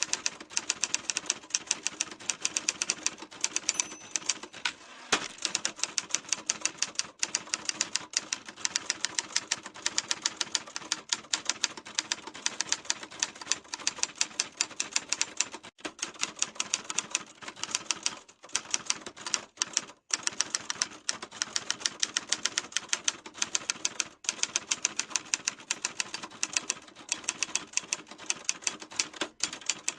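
Typewriter being typed on: fast, steady runs of key strikes, several clicks a second, broken by a few brief pauses.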